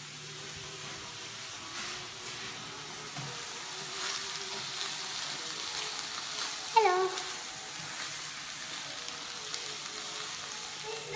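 Diced chicken, onion and fajita sauce sizzling steadily in a frying pan on a gas hob while being stirred with a spatula. A brief falling vocal sound comes about seven seconds in.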